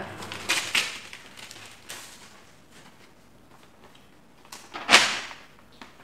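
Paper rustling and crackling as an envelope is opened and a letter pulled out and unfolded, with one sharp, loud paper crackle about five seconds in.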